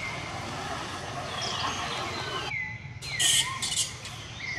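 Outdoor ambience: a steady hiss of insects, with several short calls that fall in pitch and two brief, sharp high chirps a little over three seconds in.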